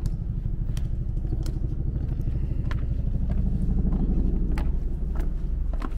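Hard-soled shoes clicking on stone at irregular intervals about a second apart, over a loud low rumble that swells a little about four seconds in.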